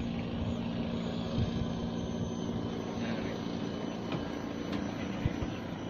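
An engine running steadily: a low hum with a few held tones that eases off a little partway through.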